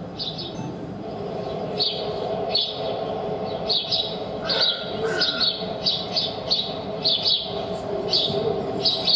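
Birds chirping: short high chirps, sparse at first and then coming several a second, over a steady low hum.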